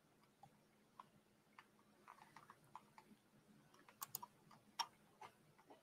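Near silence, broken by faint, scattered clicks of a computer keyboard, a few at a time, the sharpest about four seconds in.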